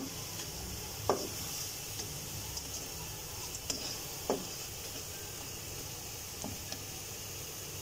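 Ginger-garlic and green chilli paste sizzling in oil in a nonstick pan as a spatula stirs and scrapes it, with a few sharp taps of the spatula on the pan.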